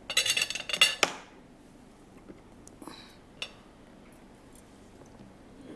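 Kitchenware clinking against a steel cooking pot: a quick, loud clatter of sharp clinks for about a second, then two or three light clicks.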